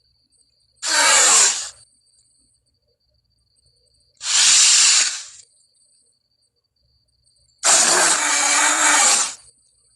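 Three separate breathy, rasping creature vocal sound effects for Aladar, an iguanodon. The third is the longest and has a faint pitched growl inside it.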